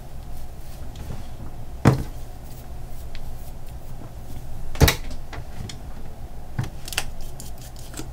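Sharp clicks and knocks of small objects being handled and set down on a desk: two louder ones about two and five seconds in, then a few fainter taps near the end, over a low room hum.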